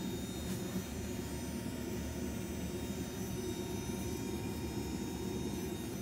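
Kohler K9 steam generator running, with water boiling in its tank to make steam: a steady low rumble.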